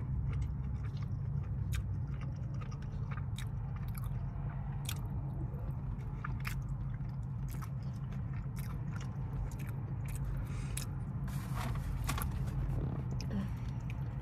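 Close-up biting and chewing of a Carolina barbecue chicken wing: irregular wet mouth clicks and smacks over a steady low hum.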